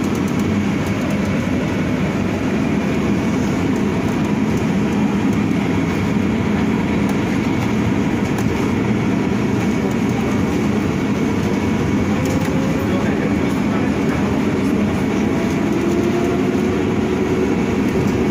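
Inside an Ursus CS12E battery-electric city bus while it drives: a steady low rumble of running gear and tyres on the road, with a faint electric drive whine that rises in pitch a couple of times in the second half.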